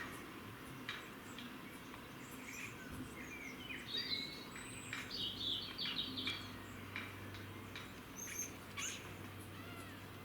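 Small birds chirping and singing, with short gliding whistled notes that come thickest a few seconds in, and scattered short sharp clicks.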